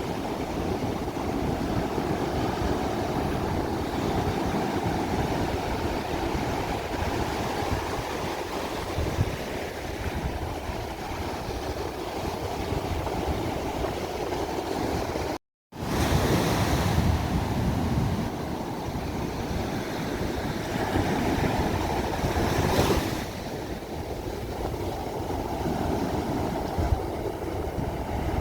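Ocean waves washing onto a shore: a continuous surf wash that swells and eases as waves break. About halfway through, the sound cuts out completely for a split second, then resumes with a surge.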